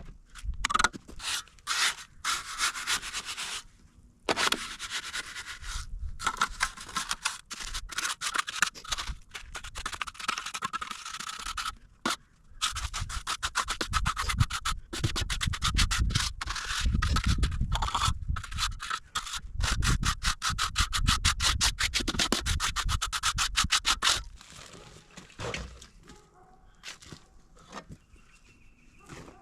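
Rapid, repeated scraping strokes of a hand tool working rough material, keeping up a steady rhythm and stopping about 24 seconds in.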